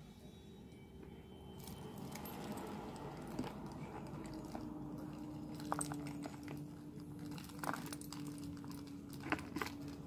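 Small metal charms and dangles clinking together as they are handled, with a few sharp clicks. A faint steady hum comes in about four seconds in.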